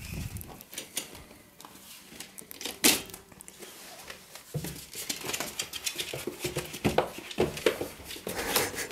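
A run of light clicks and taps, with one sharper knock about three seconds in and busier clicking in the second half, from a puppy scrabbling about beside its wire cage on a wooden floor.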